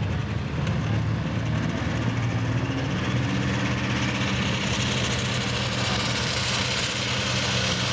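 A modified pulling tractor's engine runs under load as it hooks into the weight-transfer sled and starts to pull. A steady low engine note carries throughout, and a rush of higher sound builds from about the middle as it throttles up.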